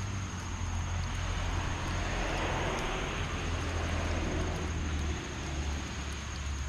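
Heavy rain falling steadily, with a vehicle passing on the wet road: its tyre hiss swells from about a second in and fades away after about five seconds. A steady low hum runs underneath.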